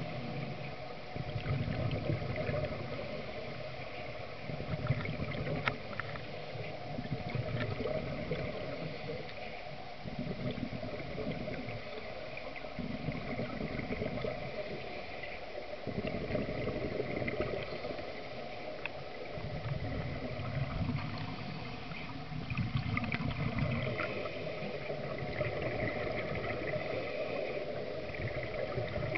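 Scuba diver's breathing heard underwater through a regulator: bursts of exhaled bubbles about every two to three seconds, over a constant hiss.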